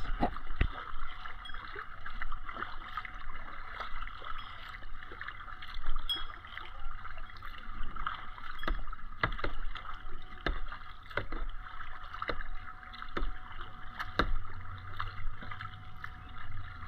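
Kayak being paddled: water splashing and sloshing under the strokes, with repeated short, sharp knocks every second or two.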